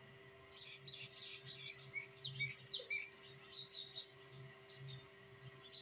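Small birds chirping: a scatter of short, high, quick chirps, thickest in the first four seconds, over a faint steady hum.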